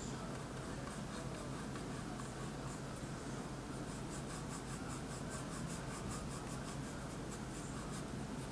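Thin paintbrush stroking oil paint onto the painting: soft scratching of short, quick strokes that grow busier about halfway through, over a steady low hum.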